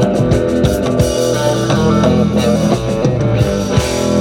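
Live rock band playing an instrumental passage on guitar and drum kit.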